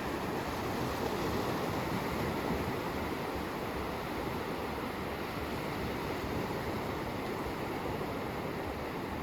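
Steady rushing noise of a car driving: tyre and wind noise, with a low rumble and no change in pace.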